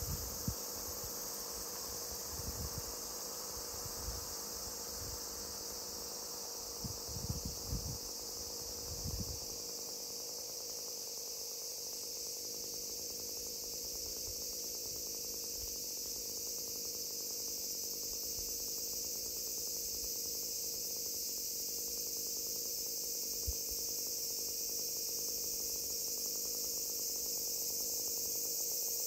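Steady, high-pitched chorus of insects, with a faint steady hum underneath. A few low bumps come and go during the first ten seconds.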